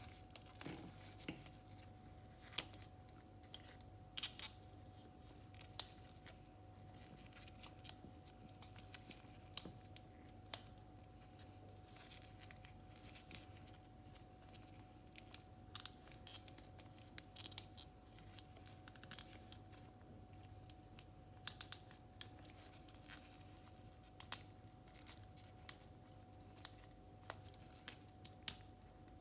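3D-printed plastic parts of a transforming robot figure clicking and snapping as joints and panels are moved by hand, in irregular clusters of small sharp clicks.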